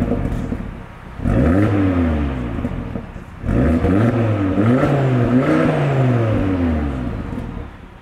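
Car engine revved several times: one rev rising and falling a little after the first second, then a run of quick rises and falls from about three and a half seconds that dies away near the end.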